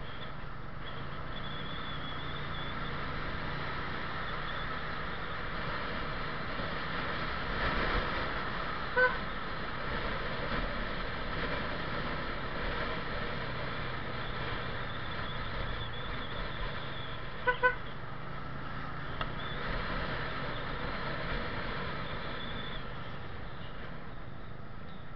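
Yamaha Jupiter Z1 underbone motorcycle, a small four-stroke single, riding steadily through town traffic with a constant engine and road noise. A short horn beep sounds about nine seconds in and a quick double beep a little past the middle.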